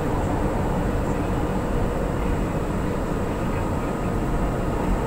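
Steady rumble and hiss of an MRT-3 light-rail train running, heard from inside the passenger car.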